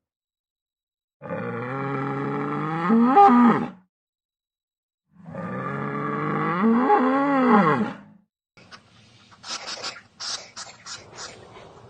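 A cow mooing twice, two long low calls each about three seconds, the pitch bending near the end. Near the end, a faint rapid run of short, high, sharp sounds follows.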